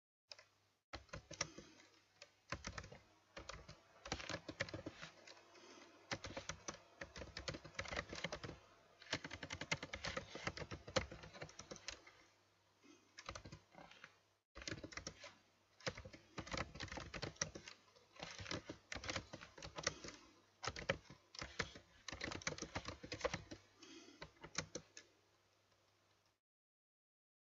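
Fast typing on a computer keyboard: runs of key clicks broken by short pauses, stopping near the end.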